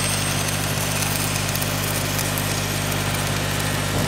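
A vehicle engine running at a steady speed to drive an under-hood alternator welder, with the hiss and crackle of an arc cutting through a steel axle shaft gear.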